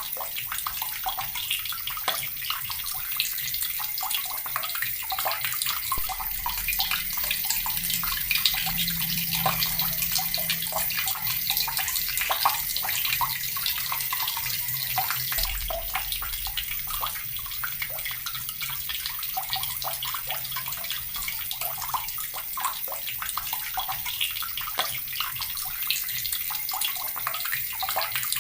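Water tap running steadily, its stream splashing into water below with a continuous bright hiss and spatter.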